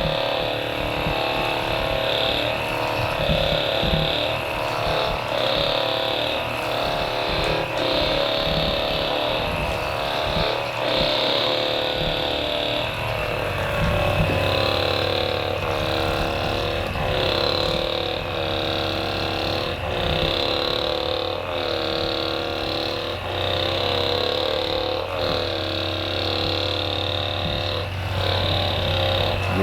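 Hypervolt percussion massage gun running steadily while it works over the hip and glute muscles. Its motor whine dips and recovers in pitch every second or two.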